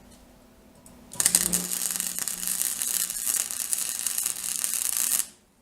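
Electric welding arc on a steel exhaust pipe, struck about a second in and crackling steadily for about four seconds before stopping suddenly. The pipe is grounded only through copper wire wrapped around it with the work clamp on the wire, and the arc burns on that ground.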